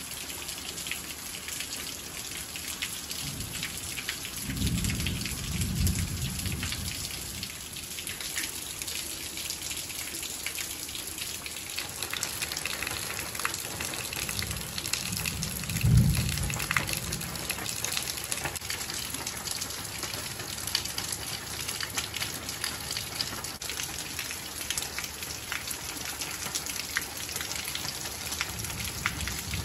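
Steady rain falling, a continuous hiss dotted with many fine drop ticks. A low rumble comes twice, about five seconds in and again, loudest, at about sixteen seconds.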